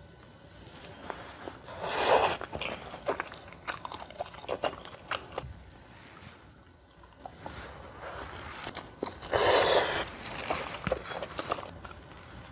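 Close-up eating of dumplings: crunchy biting and chewing, with two loud crunching bites about two seconds in and near the ten-second mark and short crackles of chewing between them.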